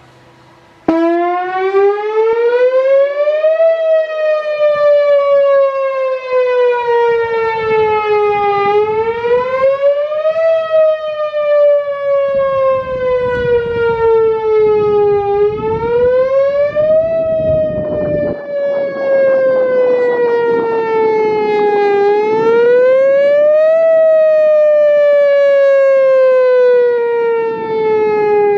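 Whelen Vortex electronic tornado siren sounding the wail signal on its test. It switches on abruptly about a second in, then sweeps repeatedly: a quick rise in pitch followed by a slower fall, with each cycle lasting about seven seconds.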